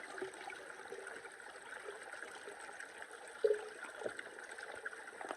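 Water trickling, with one short knock about three and a half seconds in.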